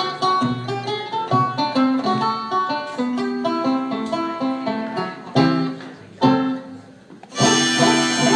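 Banjo played solo: a quick run of picked notes, then two hard-struck chords about five and six seconds in, each left to fade, and a loud, bright strummed chord near the end that keeps ringing.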